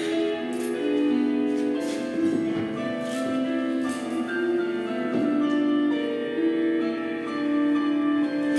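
Instrumental background music: a melody of held keyboard notes.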